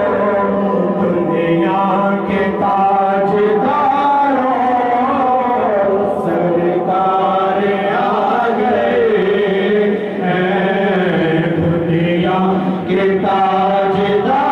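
Men's voices chanting a naat, an Urdu devotional hymn in praise of the Prophet, in long held notes that bend up and down.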